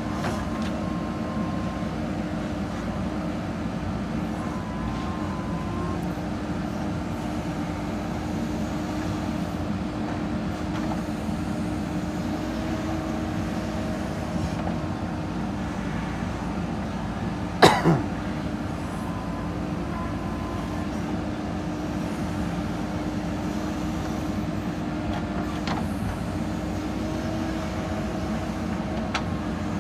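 JCB 3DX backhoe loader's diesel engine running steadily, with one loud sharp bang a little past halfway.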